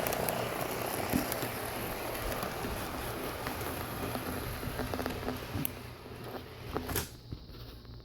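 Lionel O-gauge R30 subway model train running on three-rail track: a steady rolling rumble with small clicks and a low motor hum, growing quieter near the end as the train moves away.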